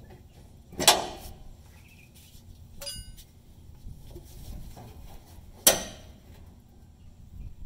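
Two sharp metallic clanks, about a second in and again near the end, as hand tools knock against the steel fuel line fittings at the fuel tank of a 1990 Chevrolet C1500.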